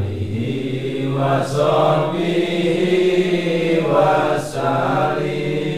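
Male voices chanting a devotional dhikr recitation in long, drawn-out melodic phrases, swelling louder about a second in and again about four seconds in.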